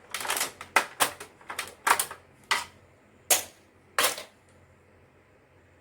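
Plastic parts of an inkjet printer clicking and snapping as the casing and its clips are pried apart: about eight sharp, irregular clicks over roughly four seconds.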